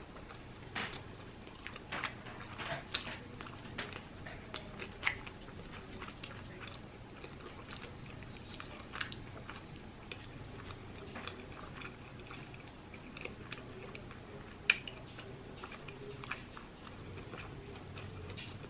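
A person chewing a mouthful of fried chicken sandwich close to the microphone: short mouth clicks and smacks, frequent for the first five seconds, then sparser, with one sharper click about fifteen seconds in.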